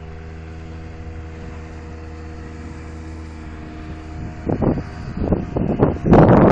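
Motorboat engine running at a steady, even pitch. From about four and a half seconds in, wind gusts buffet the microphone, and from about six seconds in loud wind noise drowns the engine.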